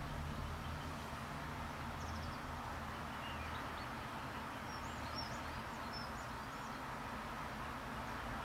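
Steady outdoor background noise, a low rumble with a hiss over it, and faint high chirps of small birds: a few about two seconds in, then a short run between about four and a half and seven seconds.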